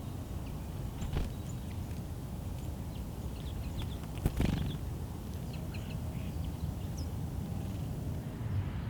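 Small songbirds giving short, high chirps and call notes over a steady low outdoor rumble, with one sharp click about four seconds in.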